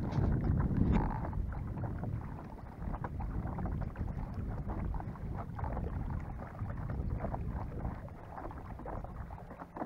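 Wind buffeting the microphone, a low rumble, with light water splashing and small knocks around a floating fishing raft; loudest in the first second.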